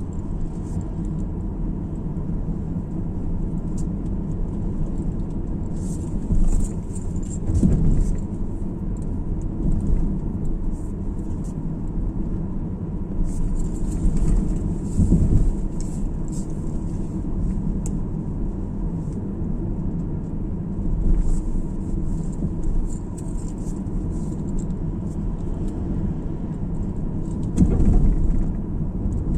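Car driving on the road: a steady low tyre and road rumble, with a few louder thumps over bumps and light rattling now and then.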